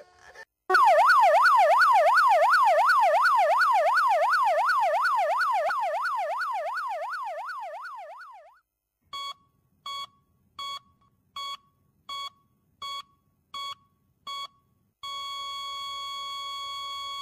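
Electronic yelp siren, most likely a recorded sound effect, rising and falling quickly about three times a second and slowly fading out. It is followed by a string of short, evenly spaced electronic beeps and then a steady tone at the same pitch.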